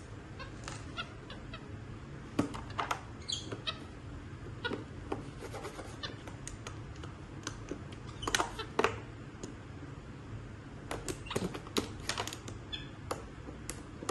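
A pen scratching and tapping on a magnetic drawing board as a capuchin monkey draws: scattered, irregular clicks and short scrapes.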